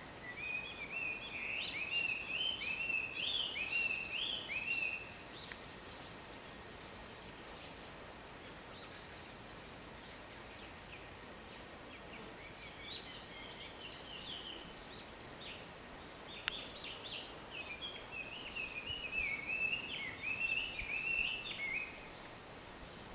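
A wild songbird singing fast, jumpy phrases of rising and falling notes in two bouts: one at the start lasting about five seconds, and another from about halfway to near the end. A steady high hiss runs underneath, with a single sharp click partway through.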